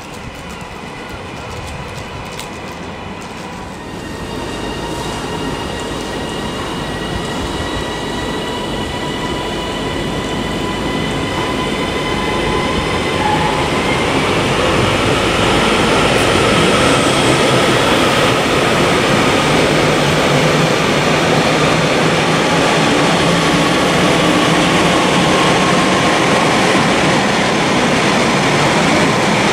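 Multiple-unit train running into the station and close past: a high whine slowly falls in pitch while the wheel-on-rail rumble grows louder, staying loud from about halfway on as the Northern unit passes alongside.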